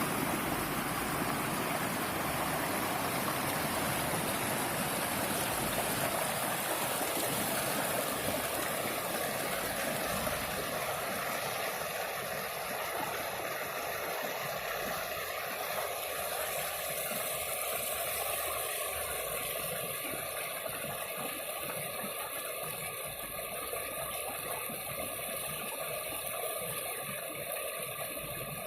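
A river flowing: a steady rush of water that eases slightly in the second half.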